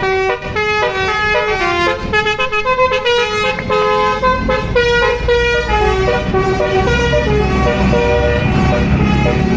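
Bus telolet horn sounding a tune of held, stepping notes, with the bus's low engine rumble growing in the second half.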